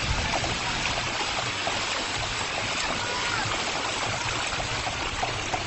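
Steady rush and slosh of shallow seawater, thick with a shoal of tamban sardines flicking and splashing at the surface, giving a dense patter of small splashes.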